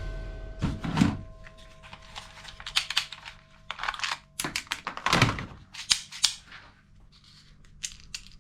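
Plastic toy gun being handled: an irregular run of sharp clicks and clacks, with a couple of heavier knocks about one and five seconds in.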